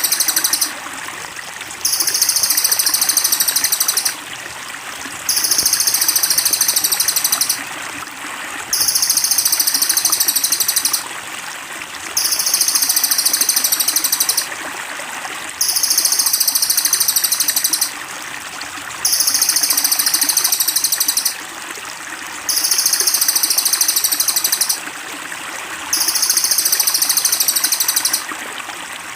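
A songbird's shrill, very high trill, repeated in regular bouts of about two seconds with short gaps, over a steady trickle of running water.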